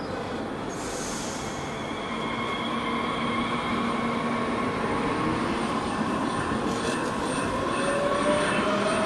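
Electric S-Bahn multiple unit pulling out along the platform, its traction drive whining and rising in pitch as it gathers speed, growing steadily louder.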